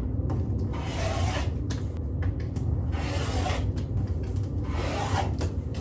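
Rotary cutter slicing through quilting fabric on a cutting mat: three cutting strokes about two seconds apart, over a steady low hum.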